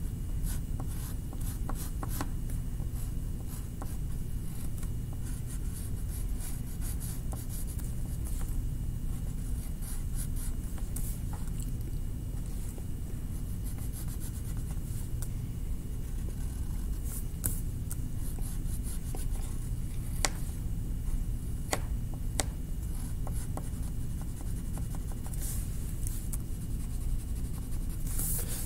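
A drawing tool scratching and rubbing on paper in many short strokes, with a few sharper ticks a little past the middle, over a steady low hum.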